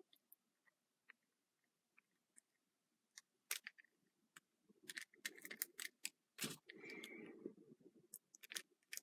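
Small plastic action-figure parts clicking and tapping as sword hilts are pushed into their sheaths. A few faint clicks at first, coming more often from about three and a half seconds in, with one sharper knock a little after halfway and a short rustle of handling.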